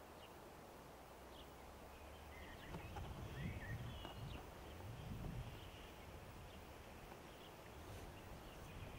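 Faint outdoor ambience: a few short bird chirps about two to four seconds in, over a low rumble that swells twice.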